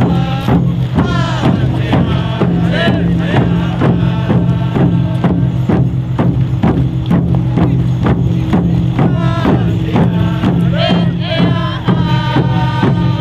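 Group singing with a steady drumbeat of about three beats a second, over a steady low hum.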